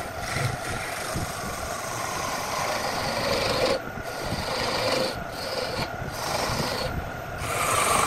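A turning chisel cutting into a wood blank spinning on a lathe: a scraping hiss of shavings peeling off, in several cuts that break off and start again, over the steady hum of the lathe's electric motor.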